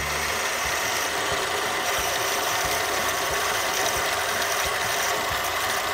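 Central Machinery (Harbor Freight) benchtop mini lathe running steadily while a 3/16-inch twist drill in the tailstock chuck bores through the center of a spinning bolt, enlarging a pilot hole. An even motor whine mixed with the scraping of the cutting.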